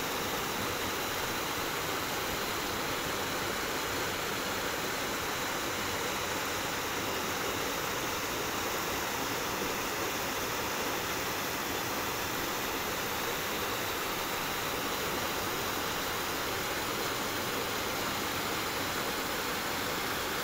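Shallow mountain stream rushing over rocks and through small cascades, a steady, unbroken rush of water.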